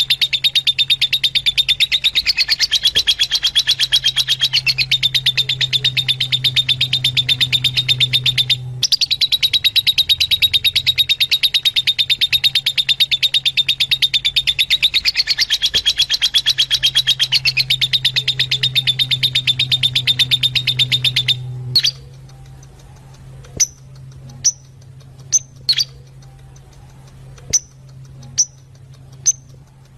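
Fischer's lovebirds chattering in a fast, continuous stream of high chirps that breaks off briefly once and then stops abruptly about three-quarters of the way through, leaving only a few single sharp chirps.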